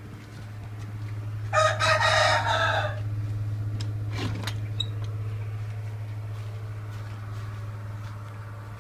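A rooster crowing once, a single call of about a second and a half starting about a second and a half in, over a steady low hum.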